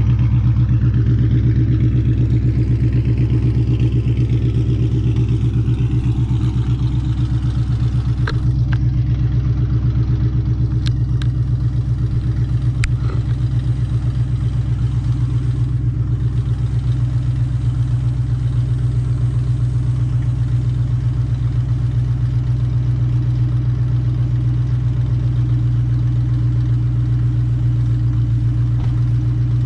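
Ford Mustang with a Borla ATAK cat-back exhaust idling with a steady, deep exhaust note. A few light clicks come about a third of the way through.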